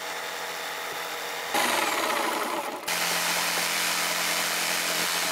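Bosch corded jigsaw sawing along a poplar board. The motor's steady hum turns louder and rougher about a second and a half in, dips briefly near three seconds, then runs on steadily.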